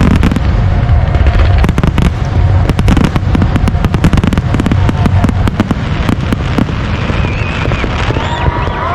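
Fireworks bursting overhead in a dense rapid barrage of bangs over a continuous low rumble, thinning out near the end.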